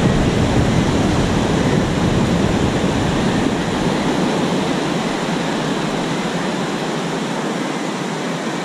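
Surf breaking on a sandy beach, a steady rushing noise.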